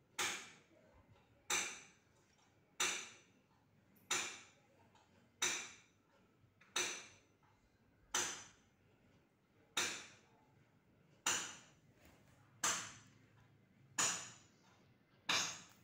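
Sharp clicks or taps repeating evenly, about one every second and a half, each ringing out briefly.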